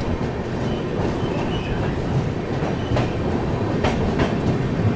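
Passenger coach of a moving express train heard from its open door: steady wheel-on-rail rumble with a few sharp clacks over rail joints about three and four seconds in.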